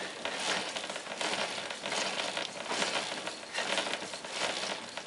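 Motorcycle gearbox and wet-clutch hub turning over by hand through the back wheel in top gear, driving the oil pump: a noisy mechanical rustle that swells and fades about twice a second.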